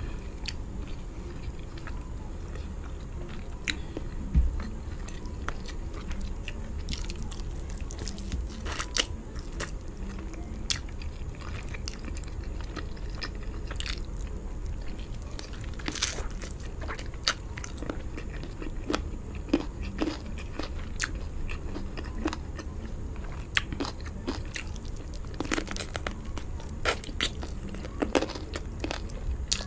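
Close-miked eating sounds: a person biting and chewing chicken drumstick meat, with wet mouth noises. Irregular sharp crunchy clicks come every second or so, more often in the second half.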